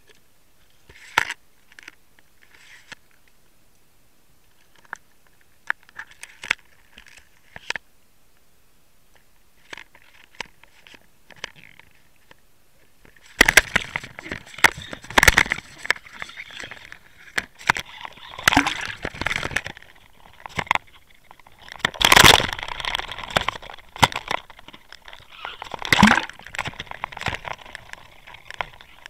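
Scattered small clicks and taps, then, about halfway through, a long run of loud splashing, sloshing and crunching handling noise in irregular bursts.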